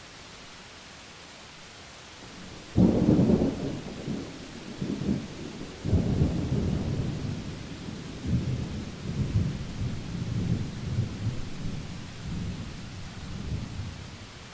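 Thunder over steady rain: a sudden sharp crack about three seconds in, then long rolling rumbles that swell again about six seconds in and die away near the end.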